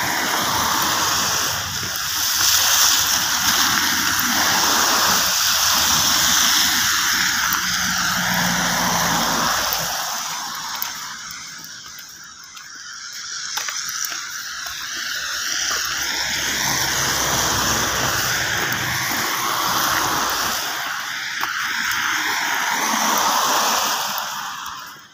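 Wet traffic: car tyres hissing and splashing through slush on a rain-soaked street. The hiss swells and fades twice as vehicles pass, with a low rumble under the louder stretches.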